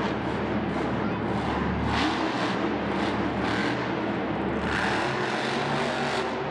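Monster truck's supercharged V8 engine running hard, revving up and down.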